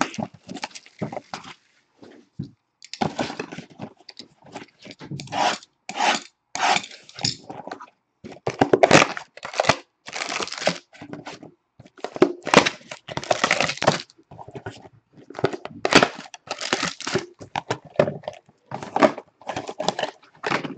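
Plastic shrink-wrap being torn and crinkled off a trading card box, and the box's cardboard flap being opened, in irregular bursts of rustling with short pauses between.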